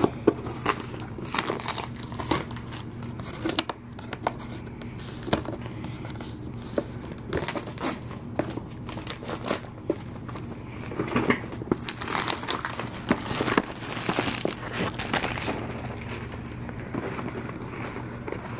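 Hands opening a cardboard retail box: crinkling, rustling and tearing of the packaging with scattered small taps and scrapes, busiest about two-thirds of the way through, over a steady low hum.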